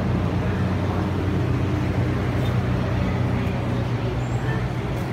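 A steady low mechanical hum, like an engine or machinery running.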